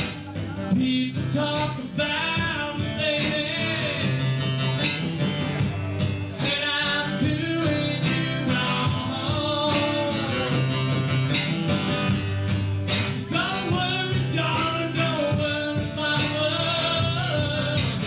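A live band playing a song: strummed acoustic guitar over a bass line, with a man singing lead.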